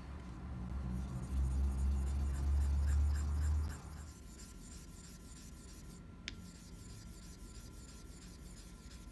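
Tenjyou nagura stone rubbed back and forth on a wet Nakayama Kiita Japanese natural whetstone, raising a slurry for honing a razor. The rubbing is loud for the first four seconds, then softer, with one sharp click about six seconds in.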